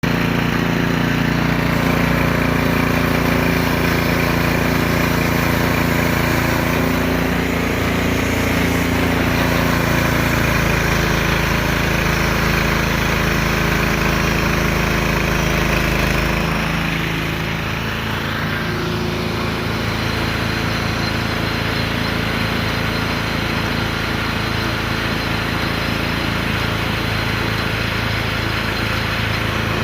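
Small gasoline engine of a portable sawmill running steadily, its note changing about 17 seconds in.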